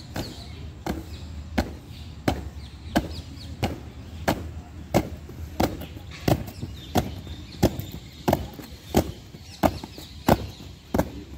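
A squad of marching cadets' boots stamping down on a paved surface in unison, in a steady drill rhythm of about three stamps every two seconds.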